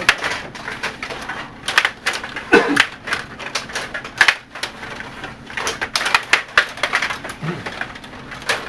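Rod table hockey in play: rapid, irregular clacks and knocks of the plastic puck striking the players and boards and the rods being worked.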